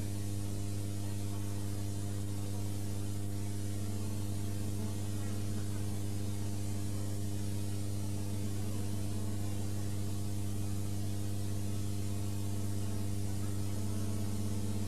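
Steady electrical mains hum, a low buzz with several overtones, over a constant hiss; it does not change throughout.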